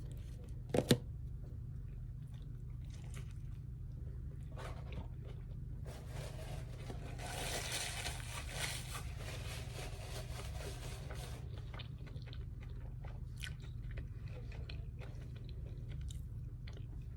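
Close-miked eating of Chick-fil-A food dipped in sauce: biting and chewing, with two sharp clicks about a second in and a denser stretch of crunching in the middle. A steady low hum runs underneath.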